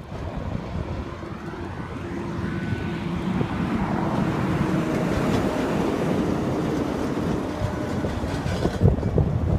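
A vehicle rumble that swells over a few seconds, with a faint steady whine in it, and falls away near the end.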